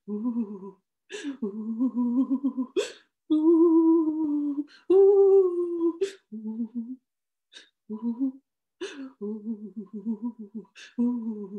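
A woman's voice making wavering, trembling hums and whimpers in several held stretches, broken by short sharp breathy sounds, voicing fear.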